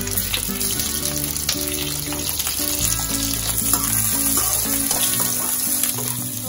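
Onion layers and green chillies sizzling steadily as they shallow-fry in hot oil in a non-stick kadai, over background music.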